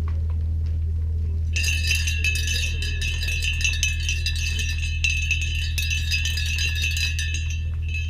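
Improvised electronic music from patched modular synthesisers and laptops: a steady low drone, joined about one and a half seconds in by a dense cluster of high ringing tones and small clicks that stops shortly before the end.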